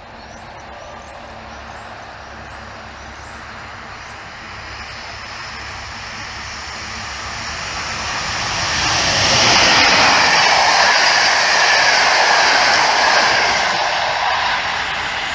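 EP07 electric locomotive hauling a TLK passenger train approaching and passing: a rushing rumble of wheels on rail that swells, is loudest from about two-thirds of the way in, then eases slightly.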